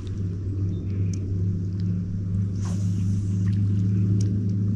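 A boat's motor running with a steady low hum. A brief rushing noise sounds a little past the middle.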